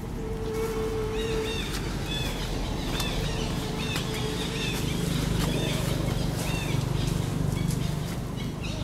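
A bird repeats a short arched chirp about twice a second, over a steady low hum of outdoor background noise.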